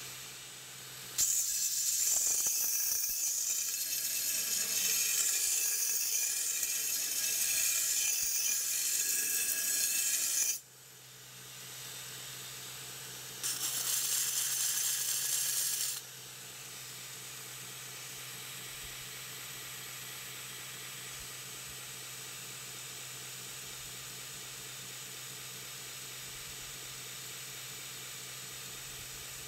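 Belt grinder running, with an usuba knife's steel blade pressed against the moving abrasive belt twice to grind it: a long grinding pass of about nine seconds, then a short one of two to three seconds. Between and after the passes the belt runs on its own with a steady hiss.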